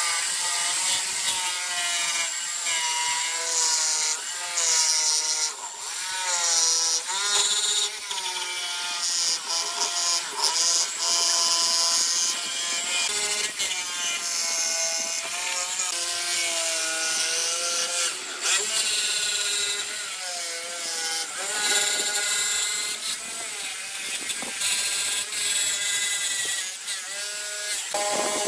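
Electric jigsaw cutting a curve through glued pallet-wood slats: the blade rasps steadily while the motor's whine wavers up and down in pitch as the load on the blade changes.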